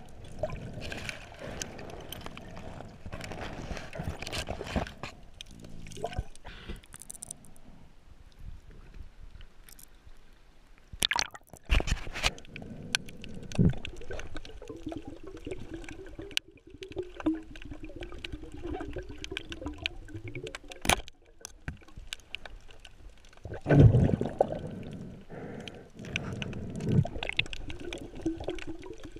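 Underwater bubbling and gurgling around a diver, with several louder gushes of bubbles and stretches of a steady low hum in between.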